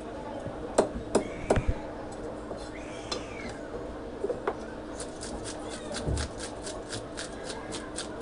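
A knife chopping into a rohu fish on a wooden block, three sharp strikes, then from about five seconds in a fish scaler scraping off the scales in quick even strokes, about four a second.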